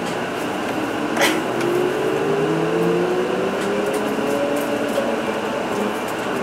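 Interior running noise of an Isuzu Erga Hybrid QSG-LV234N3 city bus moving off. A whine from the hybrid drive climbs slowly in pitch over about four seconds as the bus gathers speed, over steady engine and road noise. A single sharp click comes about a second in.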